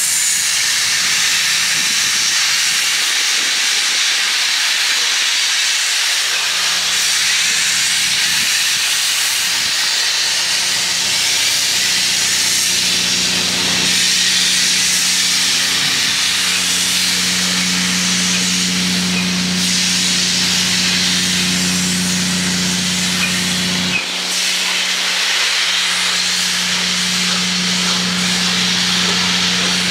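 A train standing close by gives a loud, steady hiss with a low hum underneath. The hum cuts out briefly about three-quarters of the way through, then comes back.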